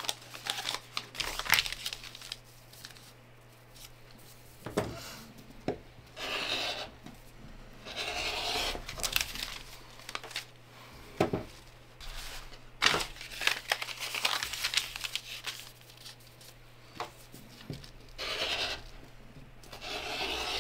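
Rotary cutter slicing through cotton quilting fabric on a self-healing cutting mat in several strokes of a second or two each, with fabric and foundation paper rustling as the pieces are handled and a few light taps between.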